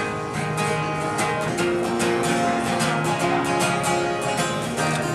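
Two acoustic guitars strumming chords together in a steady rhythm, starting sharply at the opening: the instrumental intro of a song, before the vocals come in.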